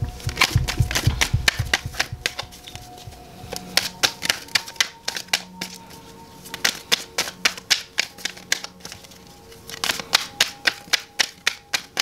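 A deck of tarot cards being shuffled by hand: runs of quick card clicks and flicks in about four bursts with short pauses between them. Soft background music plays underneath.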